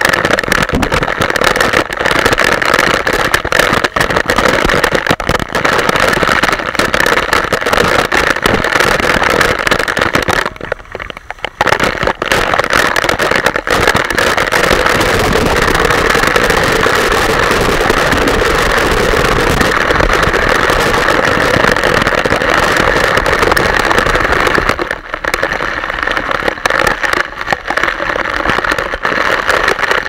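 Waterfall water pouring down onto and around a camera in the fall, a loud, steady rushing noise that eases off briefly twice.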